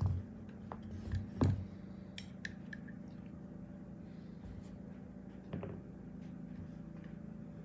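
Light clicks and knocks of small metal parts of a Staccato P pistol's frame and grip module being handled and set down on a work mat during disassembly. A few knocks come in the first second and a half, the loudest about a second and a half in, and another about five and a half seconds in, over a steady low hum.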